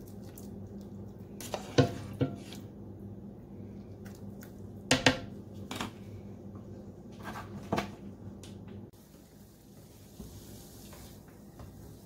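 A ladle clinking and knocking against a stainless steel pot and the slow cooker's pot as cooked carrots are scooped across: a handful of sharp clinks over a steady low hum. About nine seconds in, this gives way to a faint sizzle of celery and shallots sautéing in a pan.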